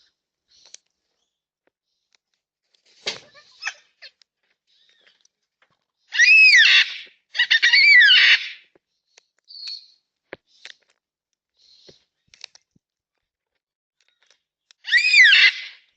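Yellow-tailed black cockatoos calling: three loud, drawn-out harsh calls, each rising then falling in pitch, two back to back about six seconds in and one near the end, with faint clicks in between.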